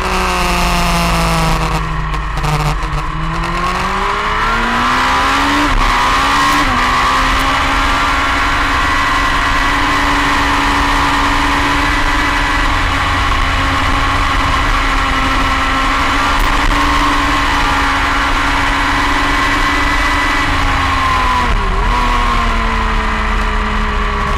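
Motorcycle engine heard from on board at speed on a race track: the revs fall through a corner, climb hard out of it, then hold high and steady down the straight, with a short dip and recovery near the end.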